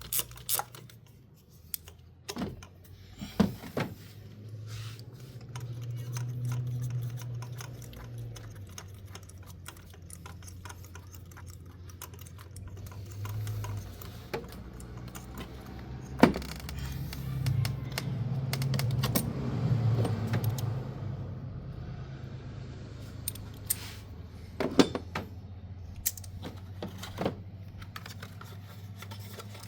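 Metal hand tools and parts clinking and clicking as they are handled, with scattered sharp taps and knocks.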